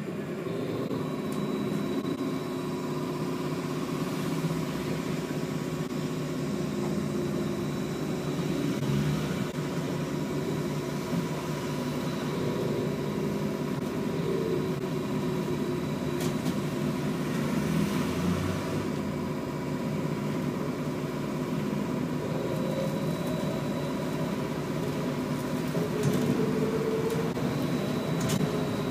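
Interior of a BKM 321 trolleybus under way: the electric traction drive hums with thin, steady whining tones over the rumble of the road and body. In the second half a whine rises in pitch a couple of times as the trolleybus gathers speed.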